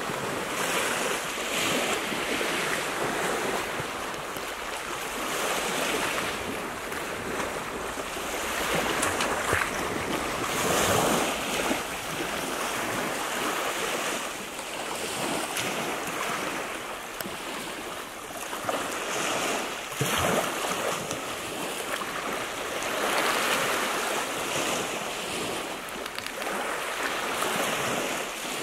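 Small waves washing onto a pebbly beach, the surf swelling and fading every few seconds.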